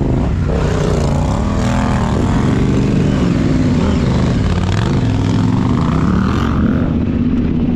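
Yamaha Ténéré 700's parallel-twin engine running under way, its pitch rising and falling as the throttle is opened and closed on rough ground.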